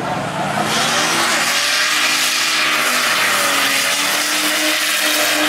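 A car running loud and steady: engine tones under a heavy, even rushing noise.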